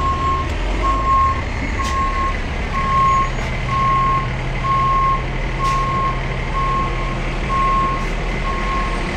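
Backup alarm of a medium-duty tow truck beeping steadily, about once a second, as the truck reverses.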